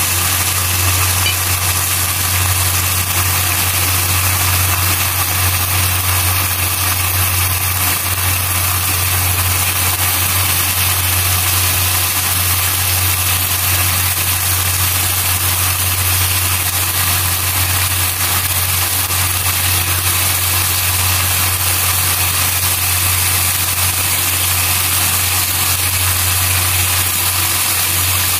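Chicken pieces sizzling steadily in their own rendered fat in a nonstick wok, over a constant low hum.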